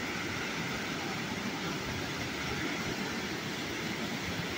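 The Rioni River running high and muddy after rain, its fast water rushing and churning over rocks in a steady, unbroken wash of noise.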